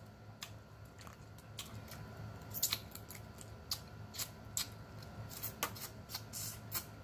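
Irregular sharp clicks and crackles of boiled crawfish shells being cracked and peeled by hand, mixed with wet mouth sounds of sucking and eating the meat close to the microphone.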